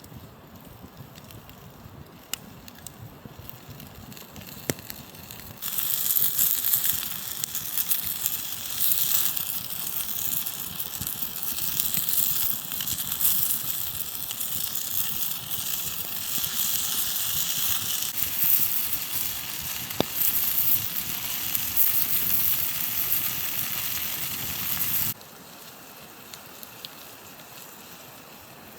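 Campfire crackling softly with scattered pops. About six seconds in, a much louder hiss full of crackles cuts in and runs until it stops abruptly near the end, leaving the soft crackle again.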